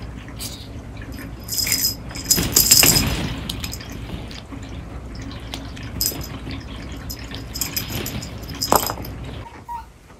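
Plastic ball-pit balls clattering and rattling against each other as a cat moves and paws through them, in two bursts about two seconds in and again near the end, over a low steady hum.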